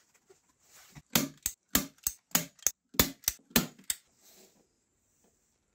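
A hand staple gun fires staples through felt lining into a wooden speaker cabinet. About a second in come about ten sharp snaps in quick succession, over roughly three seconds.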